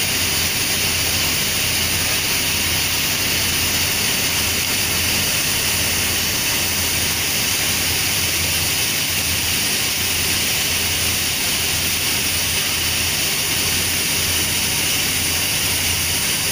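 Steam locomotive No. 850 standing with steam venting from the top of its boiler in a steady, unbroken hiss, over a low hum.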